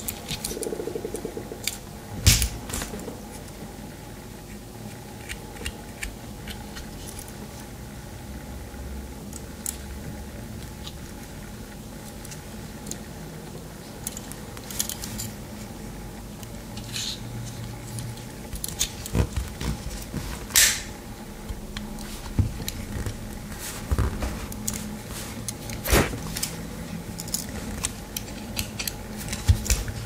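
Victorinox Ranger Swiss Army knife being handled, its tools opened and closed: scattered metallic clicks and snaps as blades and implements swing out and spring shut, with a louder snap about two seconds in and several more in the second half.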